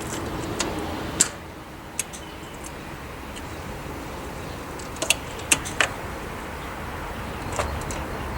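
Scattered sharp clicks and ticks from the key and ignition of a crashed Fox body Ford Mustang 5.0, over a steady low background, with no fuel pump hum: the fuel pump is not priming, a sign of a tripped inertia switch after the accident.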